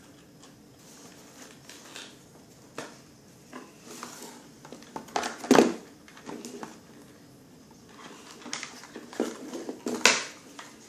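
Handling of a toy blaster's cardboard and plastic packaging while it is worked free of its ties: scattered rustles, scrapes and knocks, with two louder knocks about five and a half and ten seconds in.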